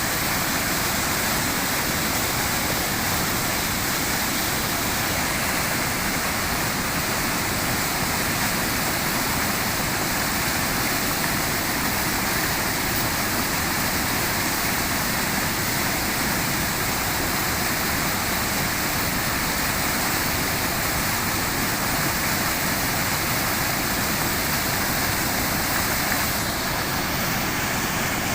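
Floodwater rushing steadily past the bridge, a continuous even rush of water.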